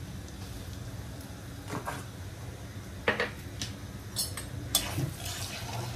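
A metal spoon knocking and scraping against a cooking pan several times while spices are stirred in the pan, with a faint steady hum underneath.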